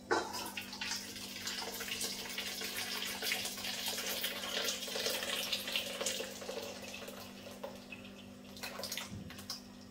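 Cooked habanero and cherry tomato sauce being poured from the pot into a sieve: a steady liquid pouring and splashing that starts suddenly and eases off near the end.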